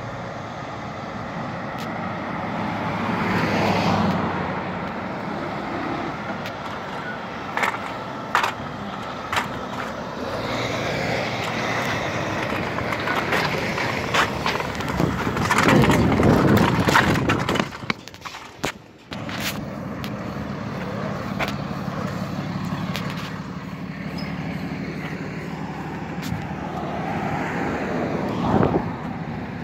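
Road traffic passing, including a semi-truck pulling a flatbed trailer. The loudest pass swells about halfway through and drops off sharply a couple of seconds later.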